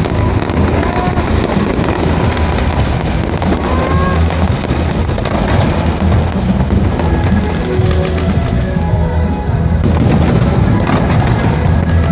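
Firecrackers and fireworks crackling steadily over loud music with a heavy low beat.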